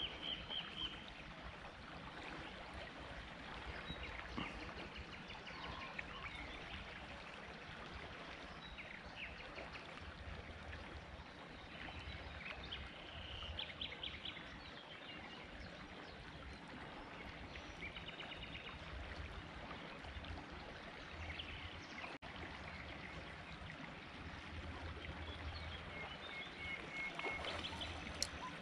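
Steady rush of flowing river water, with short bird chirps now and then and some low rumble.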